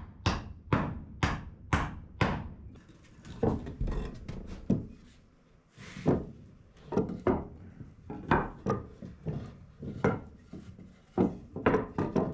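Hammer driving nails into wooden cabinet framing: runs of sharp blows about two a second, with a short pause partway through.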